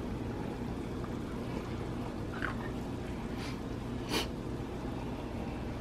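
Water at a rolling boil in a stainless saucepan, a steady bubbling hiss, with a few light clicks from the plastic-lidded egg cups being handled; the loudest click comes about four seconds in.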